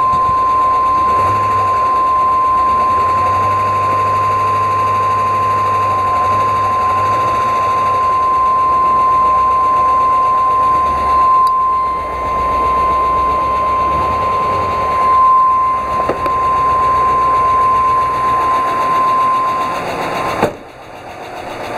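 School bus engine running with a rapid, sewing-machine-like ticking from the valvetrain, the abnormal noise that the owner suspects comes from a failing hydraulic lash adjuster, possibly down to thicker oil, cold weather or wear at over 140,000 km. A steady high tone runs alongside it, and the sound drops sharply near the end.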